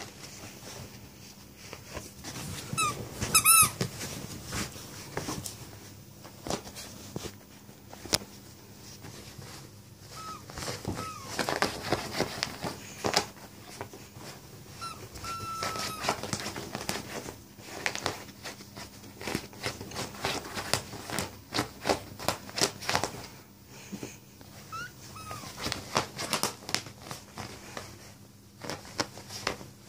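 Yorkshire terrier digging and scrabbling at a duvet, the bedding rustling and scratching in quick irregular strokes, with a few short high whines.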